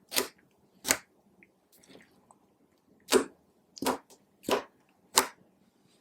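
Clear slime being pressed and stretched by hand, giving off short, sharp wet pops as air pockets in it burst. There are six pops: two in the first second and four more in quick succession from about three seconds in.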